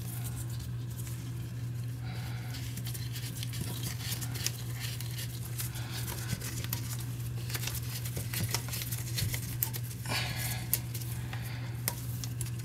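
Small clicks and light scraping of hands threading a water supply line's coupling nut onto the toilet tank's fill-valve inlet, with a few short rustles, over a steady low hum.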